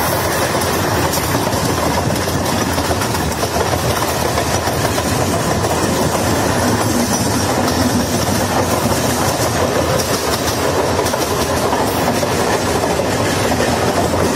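Steady running noise of trains on rails, heard through the open window of a moving train as a Western Railway Mumbai suburban EMU local passes alongside on the adjacent track.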